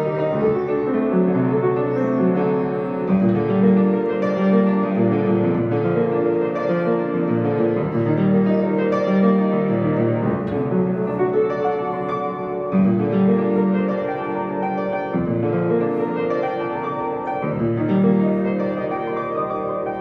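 Upright piano played solo, a flowing passage that runs on without a break, low notes sounding under a moving line above.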